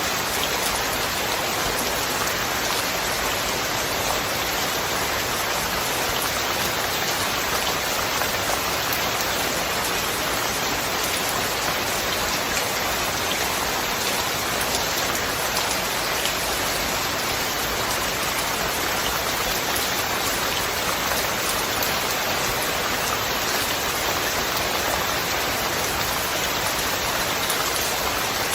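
Steady heavy rain falling on surfaces, a dense even patter with no thunder.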